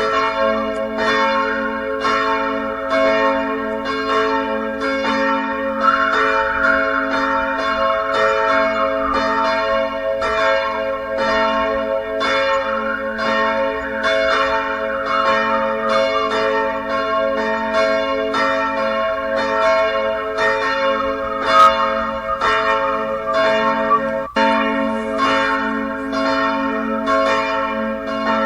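Church bells ringing in a continuous peal, struck about twice a second, with the tones of successive strikes overlapping and ringing on.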